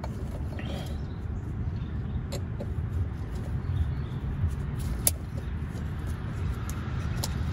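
A few sharp metallic clicks as a hex key works the bolts at the hub of an aftermarket steering wheel, over a steady low rumble.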